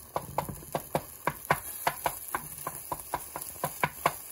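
Wooden spatula knocking against a cast iron skillet, about four quick taps a second, as it chops and stirs scrambled eggs, over a light sizzle of the eggs frying in butter.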